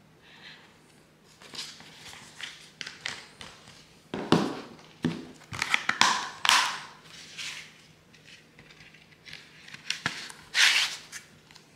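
Paper cover insert and cardboard slipcover of a Blu-ray rustling and crinkling as they are unfolded and handled, in irregular bursts loudest about four seconds in, around six seconds in and near the end, with a few sharp clicks.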